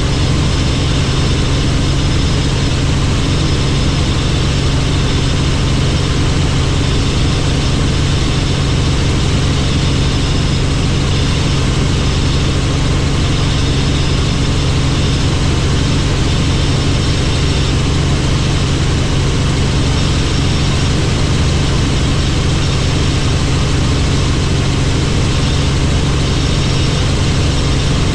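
Helicopter engine and rotors running with a steady, unchanging drone.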